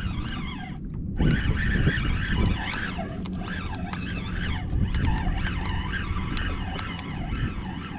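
Fishing reel whirring while a hooked fish is reeled in, a whine that rises and falls in pitch with scattered clicks, over a steady low rumble.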